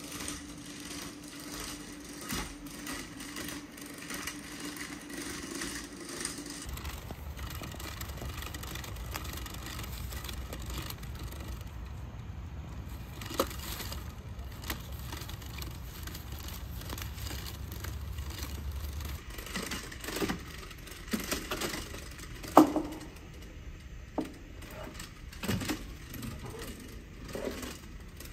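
Quadruped robot dog walking over obstacles: a steady hum for the first few seconds, then a low rumble, then a run of sharp knocks and crackles from its feet striking wood and debris, the loudest about three-quarters of the way in.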